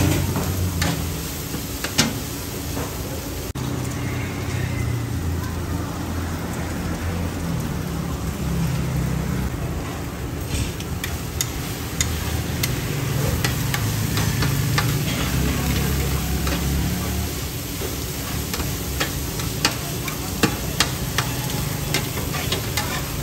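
Taro omelette frying and sizzling in a large wok while two metal spatulas stir and turn it, with sharp clinks and scrapes of metal on the wok, more frequent in the second half, over a low steady rumble.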